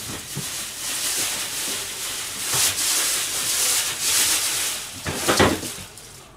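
Rough rubbing and scraping noise at a kitchen counter, coming and going in surges, with a louder clatter about five seconds in.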